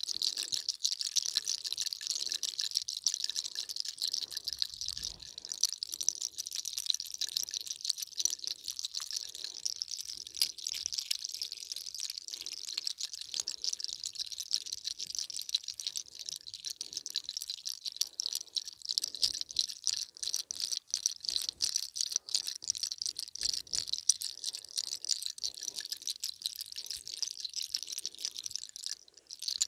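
Hands massaging the head, face and neck, with hair and skin rubbing close to the microphone: a dense, crackly rustle in strokes about once a second.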